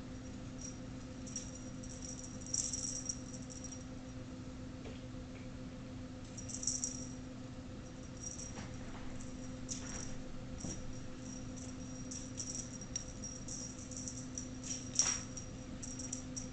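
A cat wand toy jingling and rattling in short bursts every second or two as kittens bat at it, the loudest rattle near the end, over a steady low hum.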